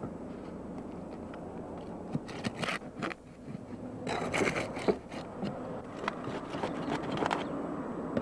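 Flat pry bar scraping under asphalt roof shingles and prying out roofing nails around a cut vent hole: irregular scrapes and sharp clicks, busiest from about four seconds in.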